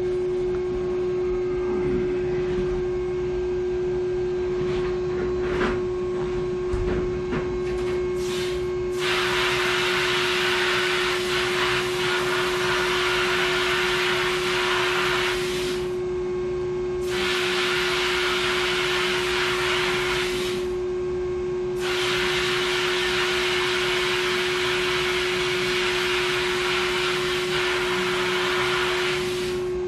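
Sandblast cabinet in use: the blast gun hisses in three long bursts from about nine seconds in, with two short breaks, as it blasts rust off a tractor top link's threads and tube. A steady motor hum runs underneath.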